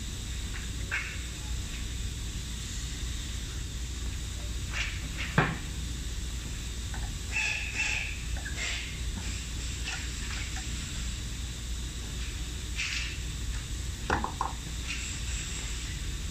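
Scattered clicks and knocks of parts being handled and set on an aluminium-profile milling machine, the loudest knock about five seconds in and a few more near the end, over a steady low hum.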